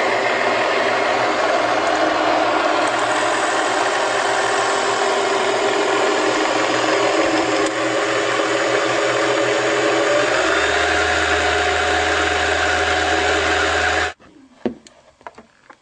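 Electric sewing machine running fast under the foot pedal to wind a bobbin: a steady whir that shifts slightly in tone about two-thirds through and stops suddenly near the end, followed by a few faint clicks.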